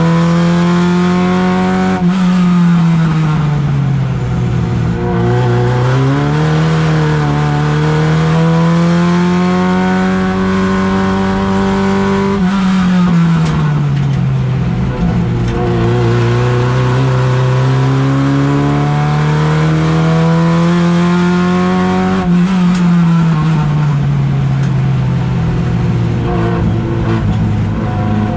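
Race car engine heard from inside the cockpit under hard driving. The revs climb slowly under acceleration and fall back three times, about 2, 12 and 22 seconds in, as the driver lifts off for corners.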